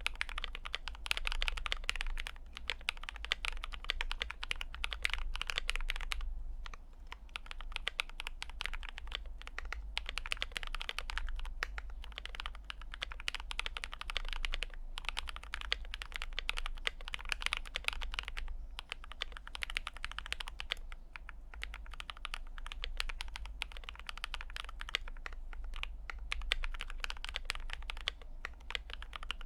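Typing on an Idobao ID67 mechanical keyboard with Akko Rose Red switches, GMK keycaps, case foam and retuned stabilizers: a fast, continuous run of keystrokes with a brief pause about six seconds in.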